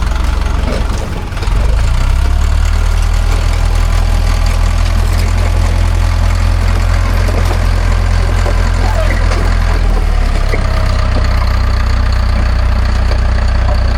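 Cat D4 bulldozer's diesel engine running steadily, deep and low, dipping briefly about a second in.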